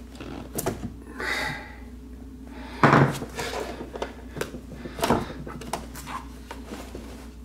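Clicks and knocks of the amplifier back plate of a Monoprice Monolith 15 THX subwoofer being unscrewed and worked loose from its wooden cabinet, with a sharp knock about three seconds in and another about five seconds in.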